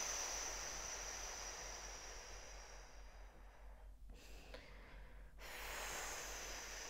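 A woman's long, slow exhalation through pursed lips, a soft whispery hiss that fades away over about four seconds; after a brief pause a second long exhale begins about five and a half seconds in. This is slow calming 'whisper breathing', with the out-breath drawn out much longer than the in-breath.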